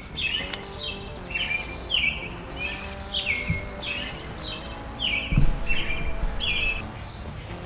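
A bird singing a short falling chirp over and over, a little under two a second, with one low thump about five and a half seconds in.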